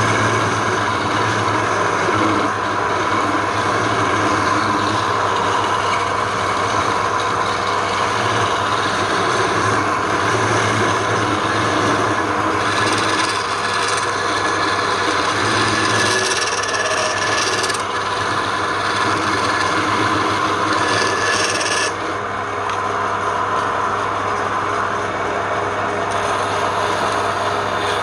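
Power tool working wood: a continuous rasping, rubbing noise over a steady motor hum. The hiss thins out about two-thirds of the way through.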